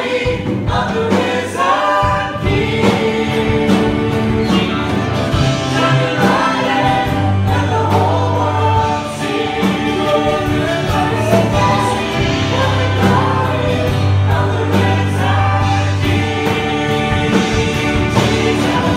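Live church worship band playing a praise song: several men and women singing together, backed by electric guitar, keyboard and sustained bass notes.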